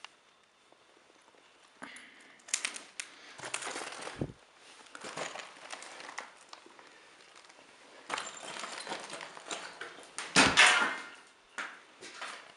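Irregular crunching and scuffing footsteps on grit and rubble over a concrete floor, in a small bare room, with a louder crunch and thump about ten seconds in.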